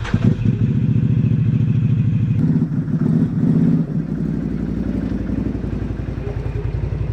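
Can-Am Outlander Max 800 ATV's V-twin engine running steadily at low revs, a little louder for about a second around three seconds in.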